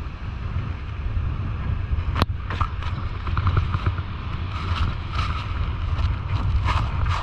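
Wind buffeting the camera microphone with a steady low rumble. About two seconds in comes a sharp knock, then irregular rustling and rubbing as a towel brushes against the camera.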